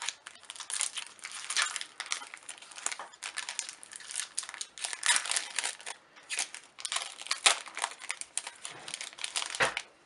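Foil wrapper of a Magic: The Gathering draft booster pack crinkling and crackling as it is handled and torn open.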